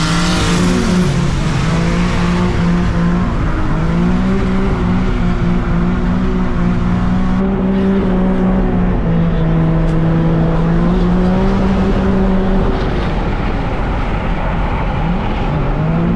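Nissan 350Z drift car's engine at high revs, its pitch rising and falling again and again with the throttle and gear changes while drifting, with tyre noise strongest in the first second or so.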